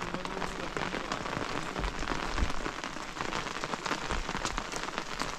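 Steady rain pattering, thick with many quick sharp drop ticks close by, with a brief low rumble about two seconds in.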